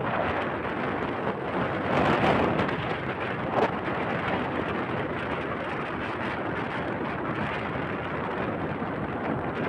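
Wind rushing over the microphone of a phone on a moving motorbike, a steady buffeting noise that swells about two seconds in, with a single brief knock a little later.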